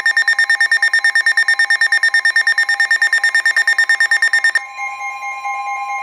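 Emergency Alert System alert tones: a rapidly pulsing high electronic alarm tone, which about four and a half seconds in changes to steady sustained alert tones, the attention signal that comes before a warning is read out.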